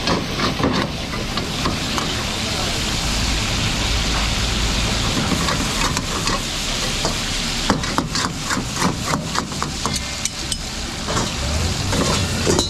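Cubed meat sizzling in hot oil in a steel karahi, stirred with a metal ladle that scrapes and clinks against the pan. From about eight seconds in, there is a quick run of sharp metal scrapes and clicks. Near the end, an upturned pan is set over it as a lid.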